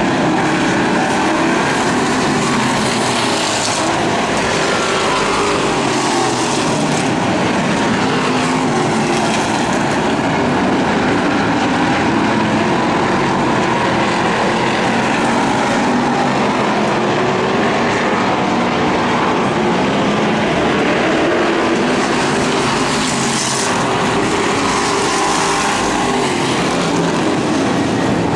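Engines of a field of hobby stock race cars running at racing speed, a loud steady din whose pitch rises and falls as the cars lap and pass.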